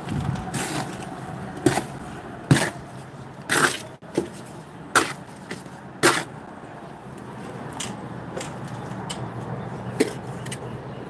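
Irregular sharp knocks and taps from sandstone pieces being handled and set in place: about seven hits, unevenly spaced, most of them in the first six seconds and one more near the end.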